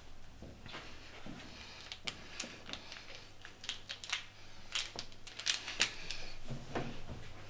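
Quiet room tone with scattered light clicks and rustles of small objects being handled, a few a second, busier in the middle.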